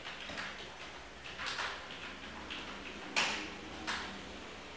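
Typing on a computer keyboard: irregular keystroke clicks, with the loudest key presses about a second and a half in and about three seconds in.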